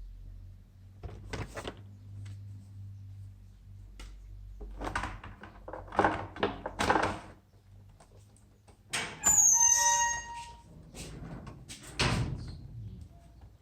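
Handling noises while working on a laptop: scattered clicks and knocks, with a short squeak about nine seconds in. A low steady hum runs underneath for the first half.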